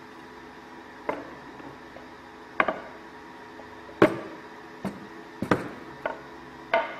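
Solid walnut trays knocking against each other and on the wooden router table as they are stacked and lifted: about seven sharp wooden clacks, the loudest about four seconds in, over a steady background hum.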